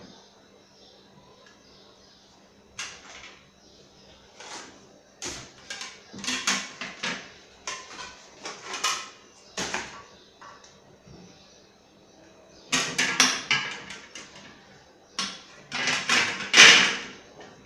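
Paper and cardboard packing rustling and crackling as ceiling fan blades are unwrapped and handled, in irregular bursts, with knocks and clatter as the blades are set down on a glass tabletop; the loudest handling comes near the end.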